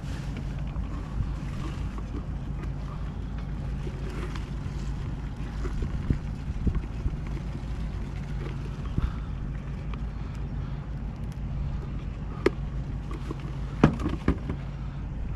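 A steady low engine hum, with a few sharp clicks of tackle being handled near the end.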